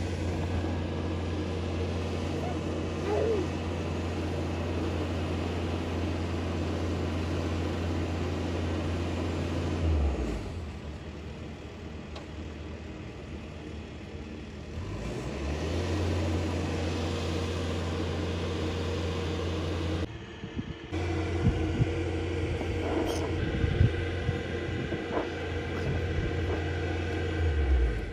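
A steady electric motor hum, switched on and off: it runs for about ten seconds, stops for about five, then runs again with a brief break around twenty seconds in and cuts off near the end. A few short knocks come in the last part.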